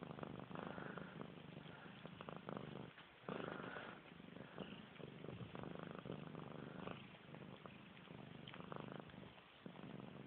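Domestic cat purring steadily close to the microphone while washing its face with its paw.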